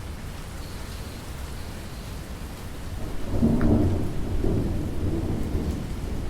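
Steady rain, with a low roll of thunder rumbling in about halfway through and slowly fading.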